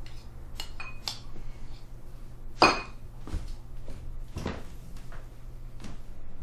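Eating utensils clinking against ceramic bowls: a few light clinks and one sharp, louder ringing clink about two and a half seconds in, over a low steady hum.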